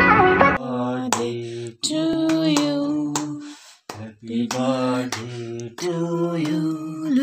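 Unaccompanied singing, mostly women's voices, in short phrases with long held notes: a birthday song sung at the cake. Instrumental guitar music stops just after the start.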